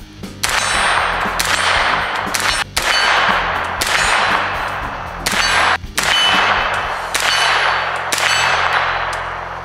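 Semi-automatic shots from an unsuppressed Colt 9mm AR-15 carbine, about eight in an uneven string. Each shot is followed by a long, ringing, metallic decay.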